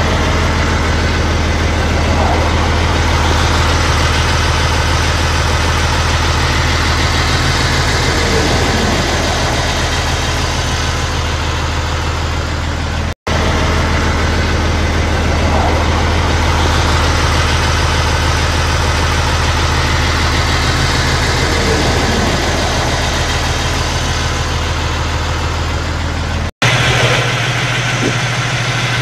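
Truck engine idling steadily with a deep, even hum. The sound drops out briefly twice, and after the second break the hum is lighter in the low end.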